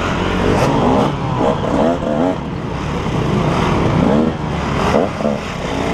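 KTM 150 XC two-stroke dirt bike engine running at low speed, with several short throttle blips that rise and fall in pitch.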